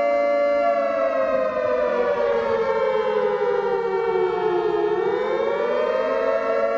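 Emergency warning siren wailing: its pitch slides slowly down for about four seconds, then sweeps back up about five seconds in, over a steady held tone.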